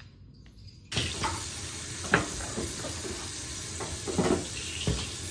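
Water running from a bathroom tap into the sink, starting about a second in, with a few short knocks and scrapes.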